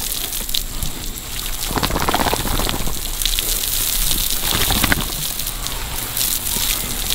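Water spraying from a hose onto pigs and muddy ground: a steady spatter of water with a few heavier surges.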